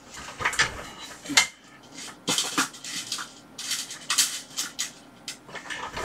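Rummaging for an LED among small electronic parts: a string of irregular clicks, rattles and clatters of small hard items being sorted through.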